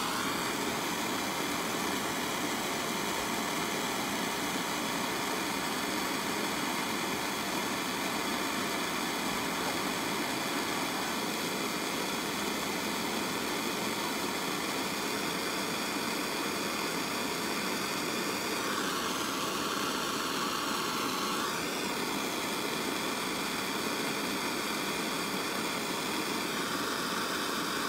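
Handheld gas torch burning with a steady hiss as its flame heats the cast iron exhaust manifold's heat-riser flap. The tone changes for a few seconds about two-thirds of the way in and again near the end.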